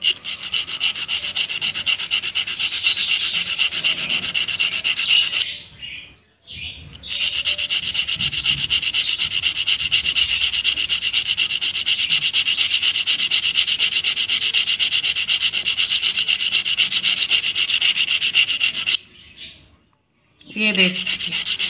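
A hard lotus seed rubbed fast back and forth on sandpaper, a quick run of even scratching strokes. It is scarifying the seed's pointed end so that it will germinate. The rubbing stops briefly about six seconds in and again near the end.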